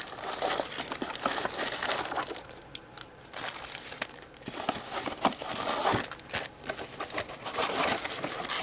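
Packaging rustling and crinkling as the contents of a model kit box are handled and lifted out, with many small clicks and knocks. It eases off briefly about three seconds in, then picks up again.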